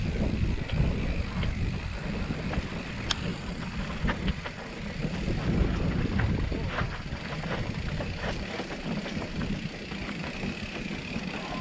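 Hardtail mountain bike riding over rough trail: steady low rumble of wind buffeting the microphone and tyres on the ground, with scattered clicks and rattles from the bike.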